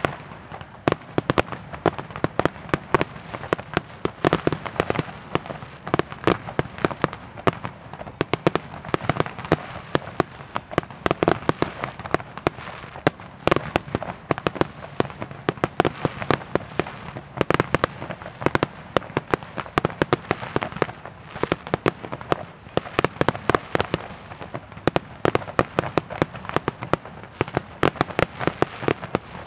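Fireworks display: a rapid, unbroken string of aerial shells bursting, several sharp bangs a second over continuous crackling.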